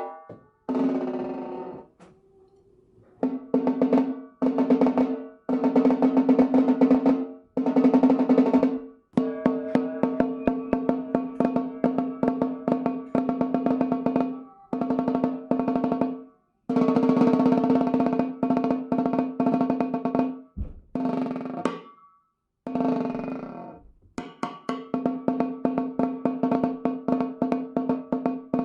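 Handmade solid-wood stave snare drum played with sticks: rapid rolls and strings of strokes in phrases of a second or two with short breaks, the head ringing with a clear steady pitch.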